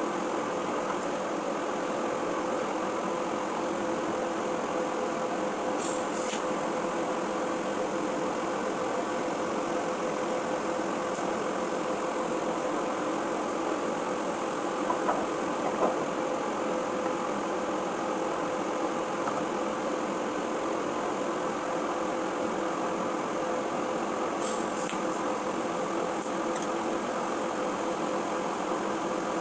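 Steady machine hum with an even tone, from running shop equipment, with a few faint brief ticks and hisses.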